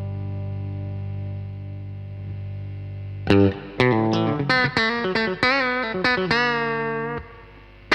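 Electric guitar played through a DemonFx CK Compressor pedal. A held low note sustains evenly for about three seconds, then a picked single-note lead line with string bends runs until it stops about seven seconds in.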